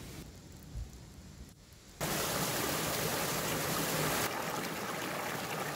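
Small mountain stream running, a steady rush of water that cuts in suddenly about two seconds in after a quieter start.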